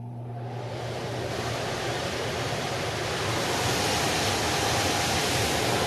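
Water rushing steadily from a pump clearing a flooded HVAC condensate drain pan, growing louder, over a low steady hum.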